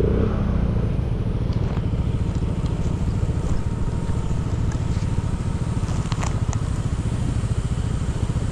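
Motorcycle engine running steadily, a low rumble of fast, even firing pulses.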